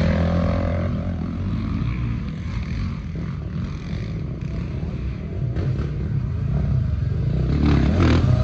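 Motorcycle engine running, a little quieter in the middle and louder again near the end.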